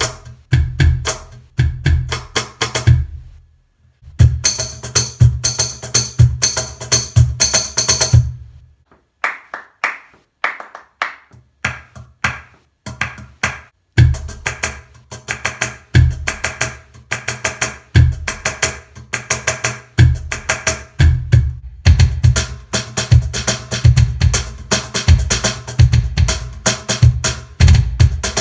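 Hand-played cajon groove triggering electronic drum-kit samples from a Roland EC-10M pedal, kick-like bass hits and higher slaps mixed with the cajon's own sound through an amplifier. It stops briefly about three seconds in, plays with only the higher sounds and no bass from about nine seconds in, and the full groove with bass returns about fourteen seconds in.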